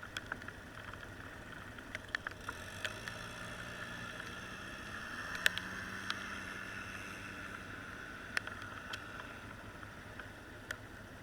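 A small motor vehicle's engine running faintly at a distance, its pitch rising towards the middle and then easing off, with a few scattered sharp clicks.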